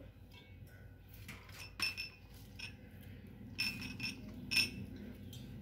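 A spoon clinking against small steel spice cups and a glass on a steel plate: several short, ringing clinks spread over a few seconds.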